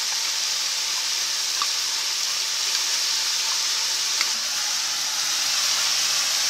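Minced beef and chopped vegetables frying in a pan, a steady sizzle with a few light crackles.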